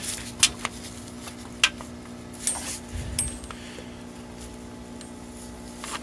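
Sharp metallic clicks and clinks, about six in the first three and a half seconds, then quieter: a magnet tool knocking against metal while fishing the spring-loaded plunger out of the bottom of a 6.0-litre diesel's engine oil pump.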